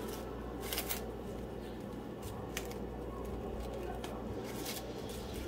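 Plastic cling film rustling and crinkling as hands fold it around a portion of soft cooked rice, with a few sharper crackles about a second in, midway and near the end. A steady low hum runs underneath.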